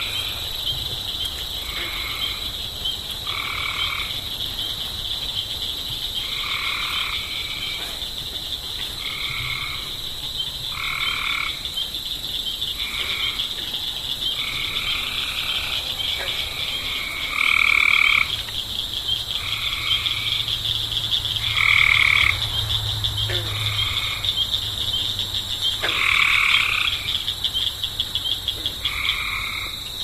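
Pond frogs croaking, one short croak roughly every second, a few louder than the rest, over a steady high-pitched chorus.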